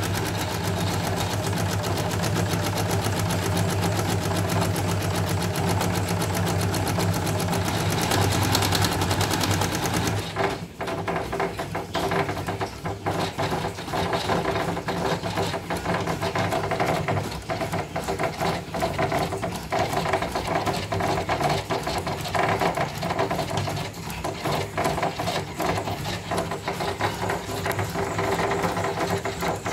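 Elna portable embroidery machine stitching a design: a fast, even run of stitches with a steady motor hum for about the first ten seconds, then choppier, uneven stitching. The repairer says this machine runs erratically, not fully normal, with a needle-bar play that could not be adjusted out.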